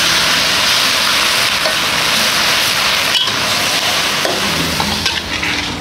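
Fern greens (pak kut) sizzling as they are stir-fried in a steel wok, a metal spatula stirring them. The steady frying hiss breaks briefly a little after three seconds.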